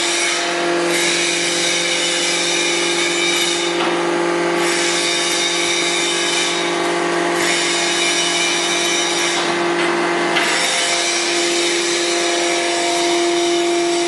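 Hydraulic power unit of a horizontal bagging baler running: a steady motor-and-pump hum with a hiss above it that briefly thins out about every three seconds.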